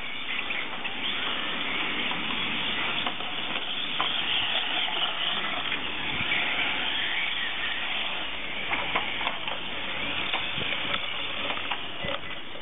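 Small 1/18-scale electric RC cars racing around the track: a steady whine and hiss of their motors and tyres, with a few short clicks.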